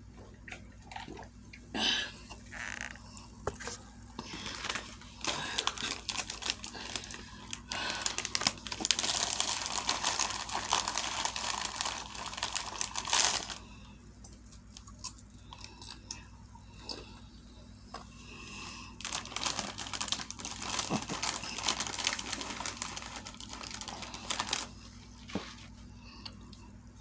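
A person eating a Subway sandwich close to the microphone: chewing and small wet mouth clicks, with a louder stretch of crinkly rustling about a third of the way in.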